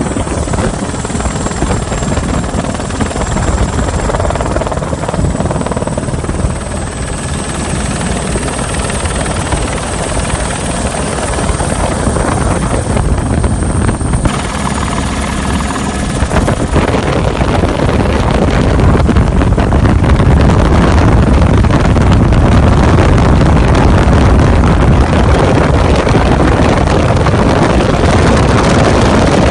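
Airbus AS350B3 single-engine helicopter in flight, heard from inside its doors-off cabin: steady rotor and engine noise that grows louder a little past halfway.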